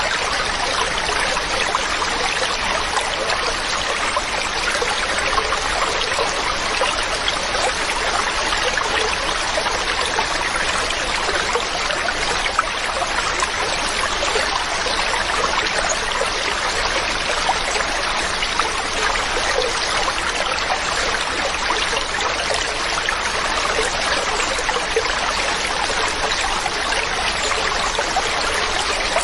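A mountain stream running over rocks: a steady, unbroken rushing and trickling of water.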